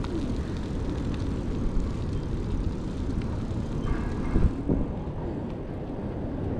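Steady low rumble of a moving vehicle: engine and road noise. There is a brief higher-pitched sound with a couple of knocks about four seconds in.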